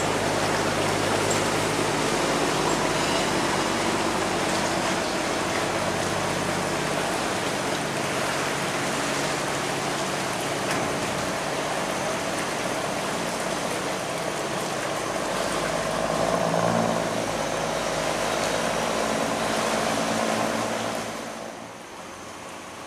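A cargo barge's engine running steadily close by, over rushing water, as the barge works against a strong current at a sluice gate. About a second before the end the engine falls away, leaving a quieter rush of river water.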